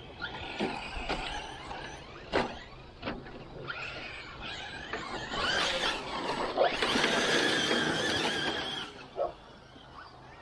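Electric short-course RC truck's Castle 1515 brushless motor whining high-pitched as it drives on a dirt track, the pitch rising and falling with the throttle and loudest in the middle stretch as it passes close. A few sharp knocks come in the first three seconds.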